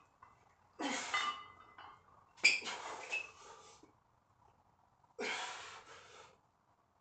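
A man breathing hard while he holds a heavy barbell at his shoulders for an overhead press: three forceful breaths, each about a second long, with short pauses between.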